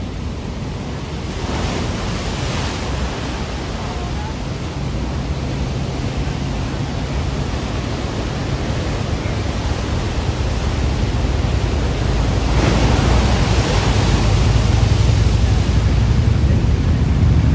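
Heavy ocean surf breaking and rushing, a dense low roar of big waves. Two wave crashes stand out, one about two seconds in and a bigger one about twelve seconds in, after which the surf stays louder.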